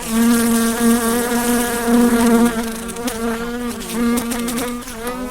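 A flying insect buzzing close by: a steady pitched buzz that wavers slightly in pitch.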